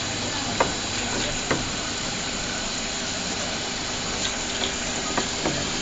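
Steady machine noise and hiss of a running wood-plastic (WPC) extrusion line, with a low hum and a few sharp clicks.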